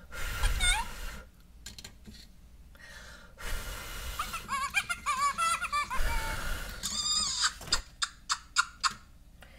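A Fingerlings baby monkey toy reacting to puffs of breath on its face: gusts of blowing with high-pitched electronic chattering and giggly squeals, then a run of short kissing smacks near the end as it blows kisses back.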